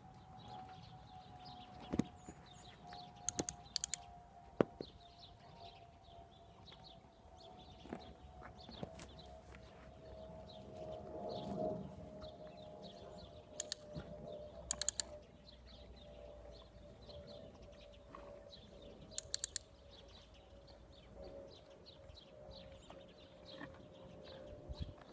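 Faint outdoor ambience: a steady tone slowly sinking in pitch, birds chirping, and a few quick clusters of two or three sharp clicks.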